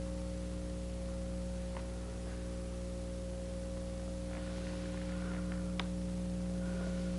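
Steady low electrical hum, a buzz of several even tones, with a few faint clicks and one sharp tick about six seconds in.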